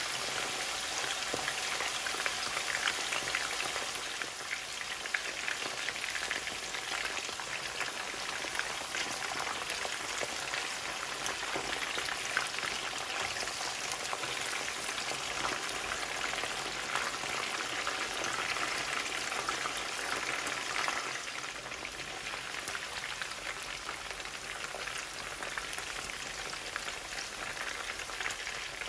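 Chicken thigh pieces deep-frying in a pan of hot oil: a steady crackling sizzle full of small pops, easing slightly about two-thirds of the way through.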